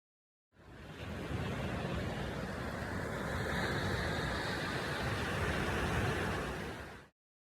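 Steady outdoor rushing noise with a fluttering low rumble. It fades in about half a second in and cuts off abruptly near the end.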